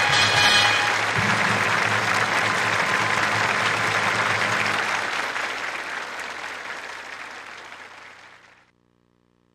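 Large crowd applauding, a dense steady clapping that fades away over the last few seconds and cuts off near the end.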